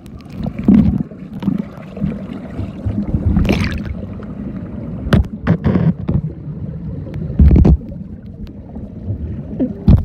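Muffled underwater sound picked up by a phone's microphone sealed inside a waterproof case: low, dull sloshing and gurgling of water, broken by several sudden loud thumps and knocks.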